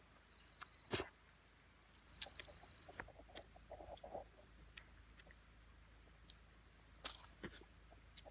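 Faint scattered clicks and light taps, the sharpest about a second in and near the end, with a few short high-pitched pulsed trills.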